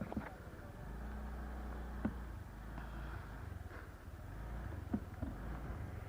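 Motorcycle engine running at low speed, a steady low hum, with a few light knocks, about two seconds in and twice near five seconds.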